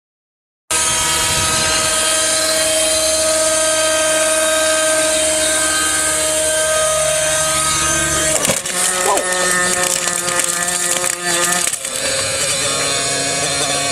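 Align T-Rex 600 RC helicopter's motor and rotor blades whining steadily in flight, starting about a second in. About eight and a half seconds in it crashes with a burst of impacts and crunching, more strikes follow around eleven seconds, and the motor whine carries on at shifting pitch afterwards.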